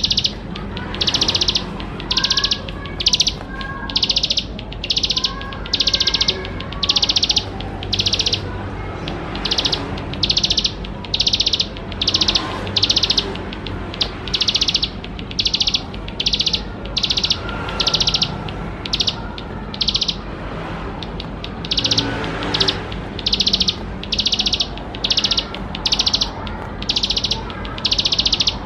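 Ciblek sawah (plain prinia) singing: a long run of repeated buzzy, rattling notes high in pitch, each about half a second, coming roughly once a second with short gaps, over a faint steady low hum.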